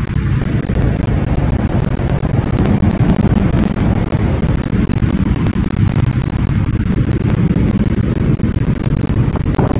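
Steady wind rush on the microphone of a moving motorcycle, over the bike's engine and road noise, riding through a road tunnel.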